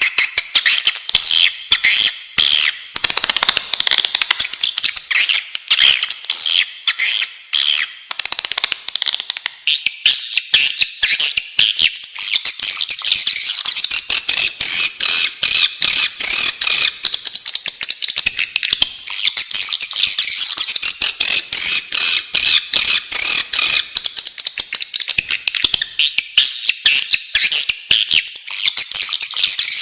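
Swiftlets calling: a loud, dense chatter of rapid high twittering chirps and clicks. About a third of the way through the chatter shifts higher and thicker. This is the swiftlet call recording played to lure swiftlets into a nesting house.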